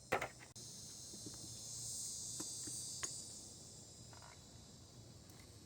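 A steady high-pitched chorus of insects that swells a little midway, with a couple of sharp knocks near the start and a few light clicks.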